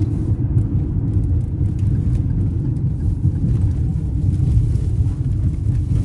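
Steady low rumble of a car driving along the road, heard from inside the cabin: tyre and engine noise.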